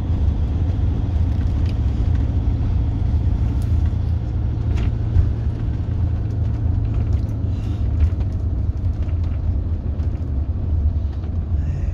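Motorhome on the move, heard from inside the cab: a steady low engine and road rumble, with a few light knocks.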